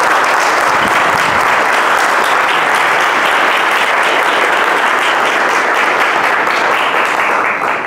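Audience applauding, a steady dense clapping that dies away at the very end.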